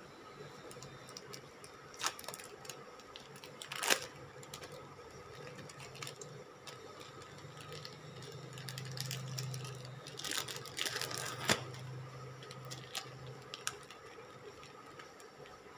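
Plastic wrapper of a processed cheese slice crinkling and crackling as it is peeled open, with a few sharp crackles (the loudest about four seconds in) and a longer burst of crinkling past the middle. Under it, a steady low hum from an induction cooktop heating a pan.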